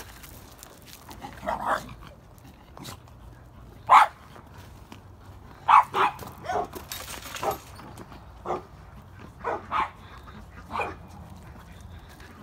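A dog barking in short single barks at irregular intervals, the loudest about four seconds in.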